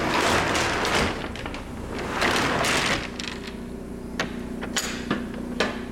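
Two rushes of scraping, rumbling noise in the first three seconds, then a few light clicks and knocks, over the steady hum of the box truck's onboard Cummins Onan generator and rooftop heat pump running.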